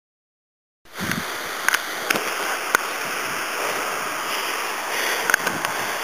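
Waterfall water rushing in a steady hiss, starting abruptly about a second in, with a few short sharp clicks over it.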